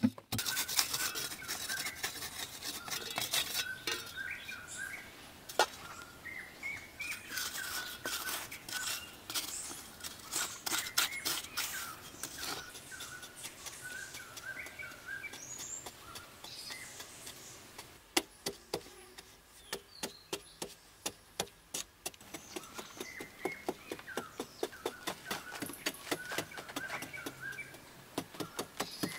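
Birds chirping, over many sharp knocks and scrapes of a short-handled hoe chopping into hard clay earth, coming quicker and more regular in the second half.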